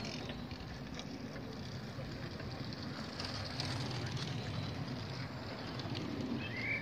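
Wind rumbling on the microphone over the soft rolling of bicycles passing on an asphalt path, with faint voices in the background.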